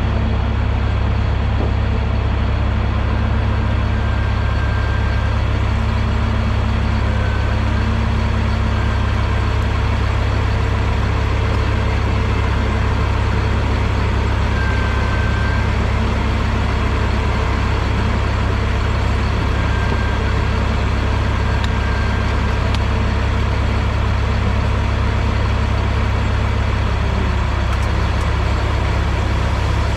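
Vehicle engine running steadily with a heavy, even low drone, heard while riding along.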